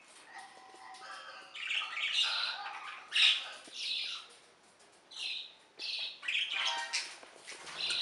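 Young budgerigar giving a run of short, harsh squawks and chirps, one call after another with brief gaps, loudest about three seconds in.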